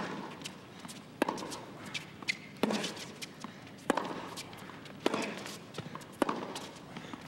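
Tennis ball struck back and forth in a baseline rally: sharp racket hits about every second and a quarter, six in all, with fainter ball bounces between them over a faint crowd hush.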